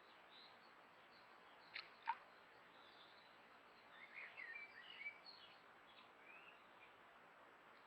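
Small songbirds calling faintly over a low hiss: two sharp ticks about two seconds in, then a short burst of high chirps and twitters about four to five seconds in.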